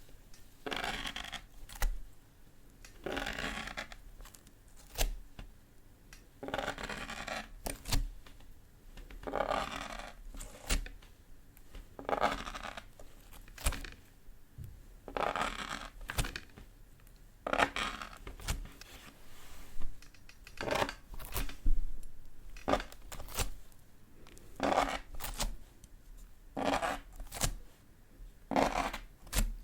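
Slime being squished and stretched by hand: soft crackly squishes come again and again, about every two to three seconds, with sharp little clicks and pops of air between them.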